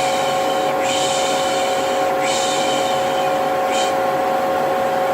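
Vacuum cleaner running steadily with a constant whine, under a repeated shushing 'shhh' in long strokes about a second each that stops about four seconds in. Together they make a soothing shush-and-vacuum white noise.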